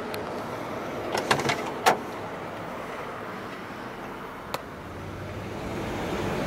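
Latch clicks from the 1959 Oldsmobile 98's push-button driver's door being worked open: a quick cluster of clicks about a second in, ending in a sharper clack. One more click comes a few seconds later, over a steady low hum from the car.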